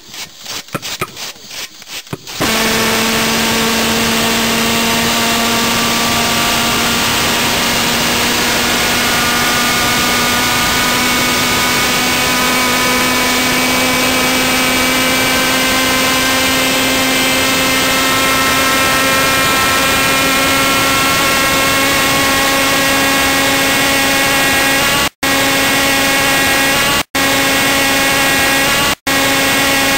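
About two seconds of quick, regular clicking from a spark igniter, then a homemade gas-fuelled pulse jet engine lights and runs loudly and steadily, a buzzing drone whose pitch creeps slowly upward. The sound drops out for an instant a few times near the end.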